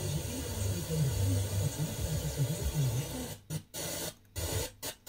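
Weak, distant FM broadcast heard through heavy hiss and noise, with faint programme audio barely coming through. Near the end the tuner output cuts out in several short mutes as the set is stepped from 87.60 to 87.55 MHz.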